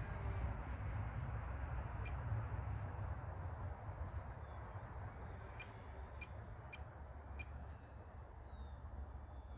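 Low, steady drone of a distant Waco biplane's engine, slowly fading as the plane flies away. Faint bird chirps and a few sharp clicks come through in the second half.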